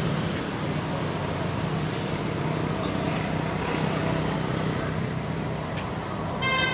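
Steady outdoor background noise with a low hum, like distant traffic. A short, high-pitched squeal comes near the end.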